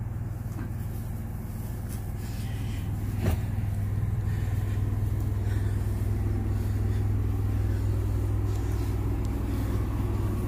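Steady low rumble of a running engine, with a single sharp knock about three seconds in, after which the rumble is a little louder.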